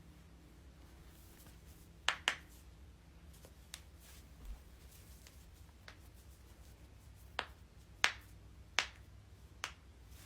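Joints cracking: a series of sharp pops, a quick double pop about two seconds in, then single pops spaced about a second apart, the loudest three near the end.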